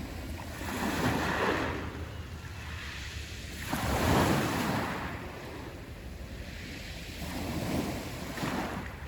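Black Sea waves breaking and washing on the shore, swelling in surges every few seconds; the loudest comes a little after four seconds in. A steady low rumble of wind on the microphone runs underneath.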